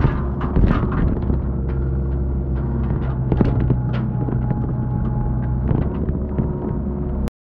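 Excavator engine running steadily with a low hum, with scattered short knocks and clanks over it. The sound cuts off suddenly near the end.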